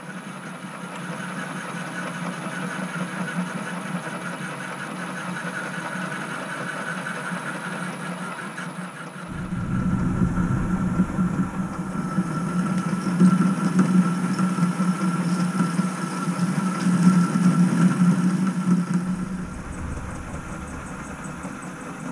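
Metal lathe running steadily with an aluminium cylinder block spinning in the chuck while a boring bar cuts the bore. About nine seconds in the cut gets louder and rougher for about ten seconds, then eases back to the plain hum of the machine.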